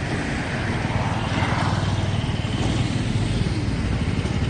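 Street traffic noise, with a low rumble and a vehicle passing close about a second in.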